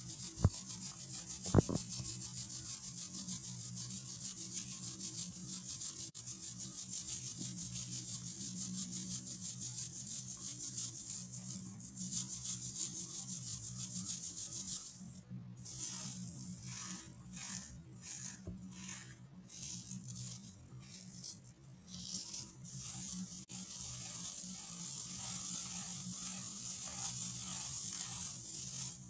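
Baking soda being rubbed by hand through a metal mesh sieve: a steady scratchy hiss of powder on wire mesh, which stops and starts with the strokes through the middle stretch. Two sharp taps near the start.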